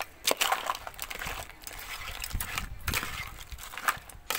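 A spoon scraping and clinking against a metal kadai as crab pieces, onion and tomato are stirred and sautéed with ground masala: scattered irregular clicks and scrapes.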